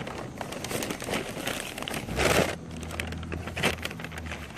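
Crinkling and crackling of fast-food packaging being handled, with a louder rustle about two seconds in. A low steady hum sounds under the second half.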